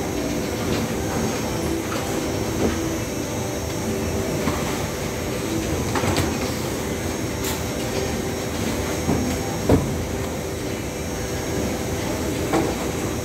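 Waste-sorting conveyor belt running steadily: a continuous mechanical rumble and hum with scattered clicks and knocks, and one sharper knock nearly ten seconds in.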